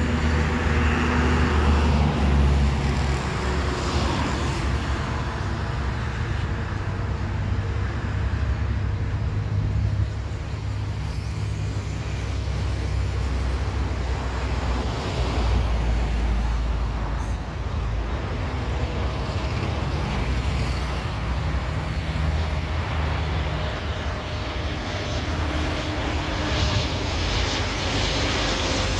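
Road traffic passing with a steady low rumble, while the turbofan engines of an Embraer 190 on final approach grow louder toward the end.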